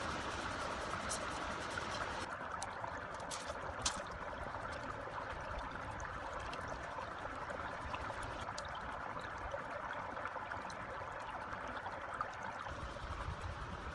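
Small stream running steadily over shallow water, with a few light clicks from bamboo strips being handled and woven.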